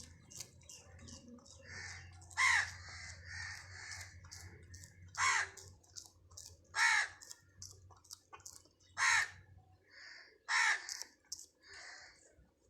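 Animal calls: five loud calls spaced a second or two apart, each falling in pitch, over quick high chirping throughout, with a faint low hum that stops near the end.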